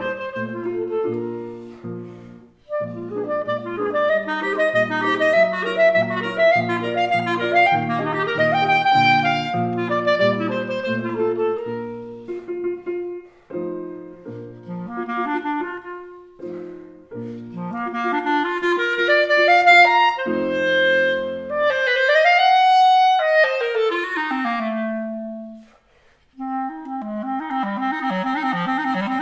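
Clarinet and grand piano playing a duet, with dense piano chords under the clarinet line. About two-thirds through, the clarinet makes a long glide up and then back down. After a brief pause near the end it plays a fast wavering figure that ends in a rising glide.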